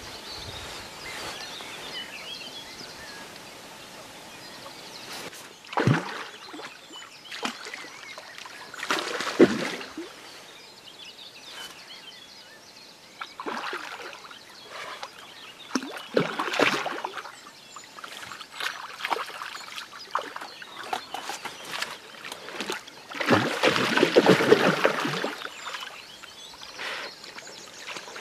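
A hooked mirror carp splashing and sloshing in the water as it is played in close, in irregular bursts, the longest and loudest lasting about two seconds near the end.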